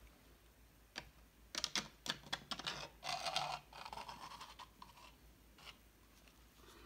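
Upturned plastic cup dragged across a wet, paint-covered canvas panel: faint scraping with a run of quick small clicks, busiest between about one and a half and three and a half seconds in.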